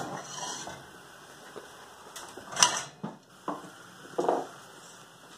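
A few separate knocks and clatters of cookware being handled at a gas stove, the sharpest about two and a half seconds in, with quieter bumps after it.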